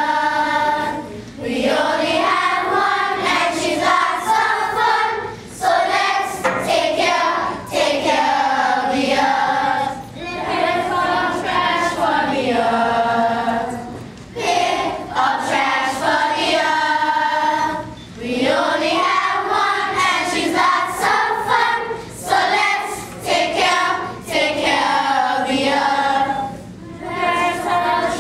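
A children's choir singing together, many young voices in unison, in sung phrases a few seconds long with short breaks between them.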